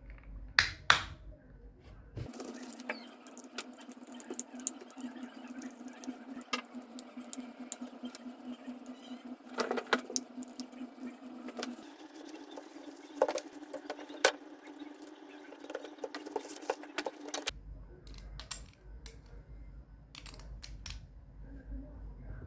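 Small metal parts of a Shimano Catana spinning reel clicking and rattling as the reel is put back together by hand, with scattered sharp ticks. A steady low hum runs underneath from about two seconds in until near the end.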